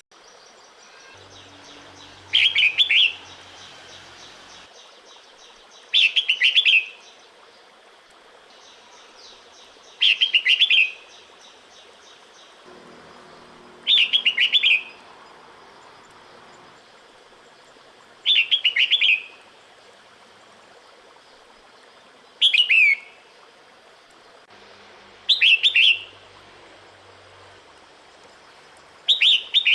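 Female red-whiskered bulbul giving her breeding-season call to males: a short, rapid chirping phrase repeated about every four seconds, eight times.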